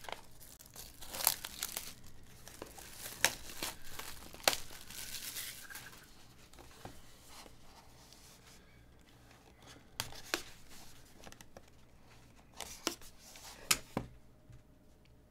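Plastic shrink wrap being torn and crinkled off a sealed trading-card box, crackling sharply for the first several seconds, then only a few scattered crackles near the end.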